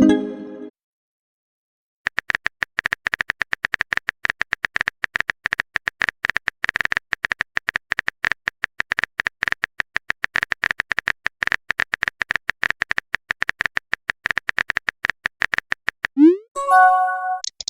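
Rapid keyboard-tapping clicks of a phone texting sound effect. Near the end comes a quick rising swoosh and a short chime of a few stepped tones, as of a message being sent and arriving.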